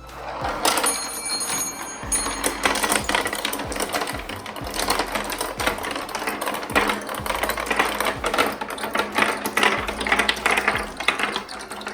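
A pack of marbles rolling down a marble-run track, clattering in dense, rapid, irregular clicks as they knock against the track and each other. A brief high ringing sounds about a second in.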